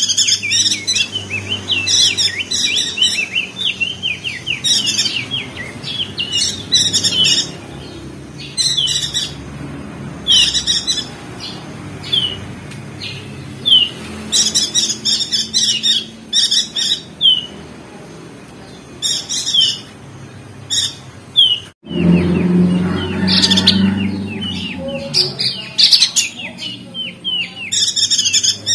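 Opior jambul (crested white-eye) twittering: rapid, high, short chirps in repeated bursts. After a sudden break about three-quarters of the way through, a low rumble comes in under the chirping.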